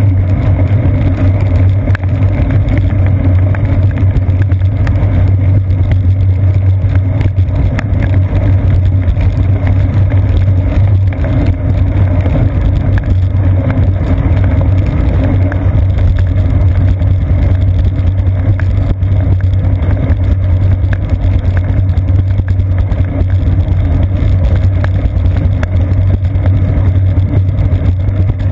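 Steady, loud rumble and hiss of a bicycle rolling along a wet paved path in the rain, picked up through a seat-post-mounted GoPro Hero 2: road and tyre vibration coming through the mount.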